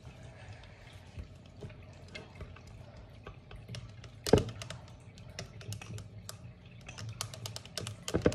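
A thin stick stirring a milky liquid in a tall glass, clicking and tapping against the glass, with a louder click about four seconds in and a quick run of clicks near the end.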